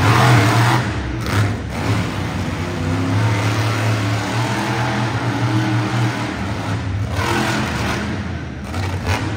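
Monster truck engine running and revving, with throttle bursts at the start and again about seven seconds in.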